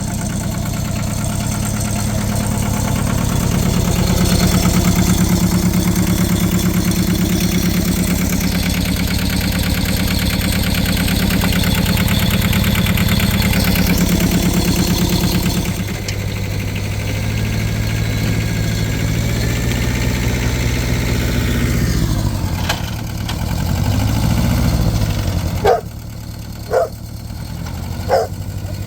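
A vehicle engine running steadily; its tone drops about halfway through, then swings up and down shortly before the end. Three short, sharp yelps come near the end.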